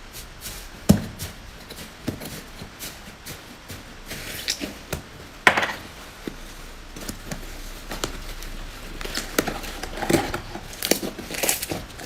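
Slime being worked by hand, a string of small sticky clicks and crackles, with a sharp louder snap about a second in and another about five and a half seconds in, and quicker crackling near the end.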